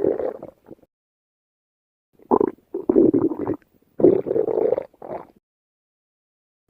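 Human stomach growling: a growl fading out just after the start, then four short growls of under a second each between about two and five seconds in, with dead silence between them.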